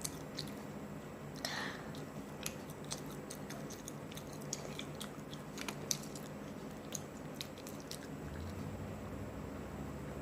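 A person chewing and biting into hot and spicy chicken close to the microphone: irregular small wet smacks and light crunches, with a faint steady hum under them.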